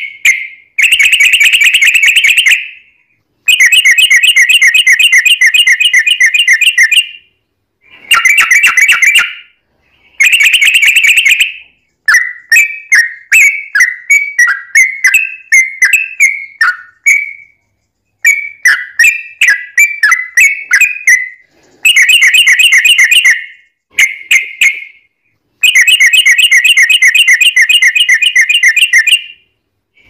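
Yellow-vented bulbul (trucukan) song, loud and bubbly. Rapid rolling trills a few seconds long alternate with runs of short choppy notes, with brief pauses between phrases. This is the long rapid 'ropel' song.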